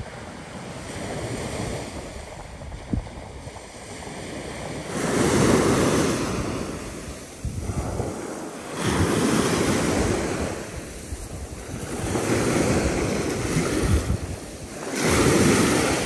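Sea waves washing onto the beach, swelling four times about every three to four seconds, with wind buffeting the microphone.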